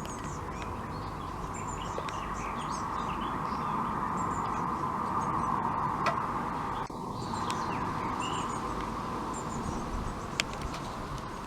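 Small birds chirping and twittering in short high notes over a steady hiss, with a few sharp clicks.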